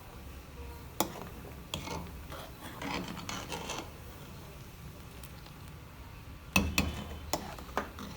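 Kitchen utensils and dishes being handled while making oatmeal: a few sharp clicks and knocks, with a stretch of scraping about three seconds in and a quick cluster of knocks near the end.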